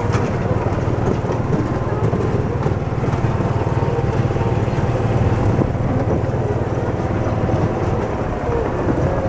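Small off-road utility vehicle's engine running steadily as it drives along a rough dirt farm track, a constant low drone.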